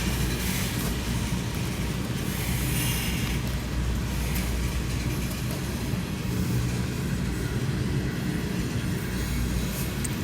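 Coal train's cars rolling past, a steady rumble of steel wheels on the rails with a recurring higher hiss.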